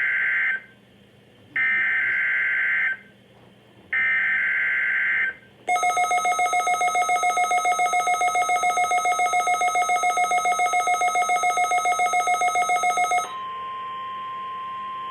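NOAA Weather Radio alert tones for the weekly test. First come short buzzing bursts of digital SAME header data: the end of one and then two more, with gaps between them. Next, a loud alarm tone pulses rapidly for about seven seconds. It gives way to a quieter steady single tone, the 1050 Hz weather radio alert tone.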